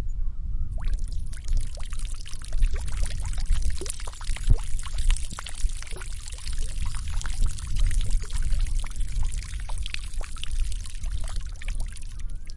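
Waterfall: heavy water pouring and splashing in a dense, steady rush with a deep rumble underneath.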